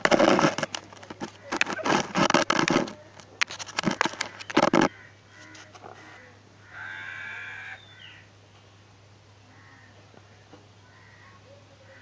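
Loud rustling and scuffing right against the microphone, with the kitten pressed up to the phone, for about five seconds and stopping abruptly. About two seconds later comes a single pitched animal call lasting about a second.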